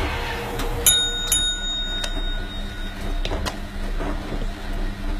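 A bright bell-like ding about a second in, struck again shortly after and ringing briefly, followed by a few scattered light clicks.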